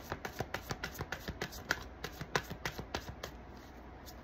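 Tarot cards being shuffled by hand: a run of quick, light card slaps at about four a second that thins out near the end.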